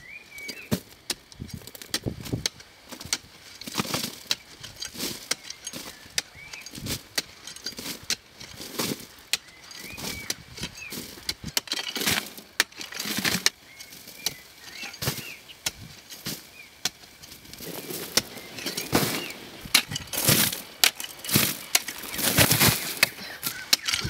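A metal digging tool striking and scraping hard red earth over and over at an uneven pace, with loosened soil and gravel falling; the strikes come thicker and louder near the end. Birds chirp faintly in the background.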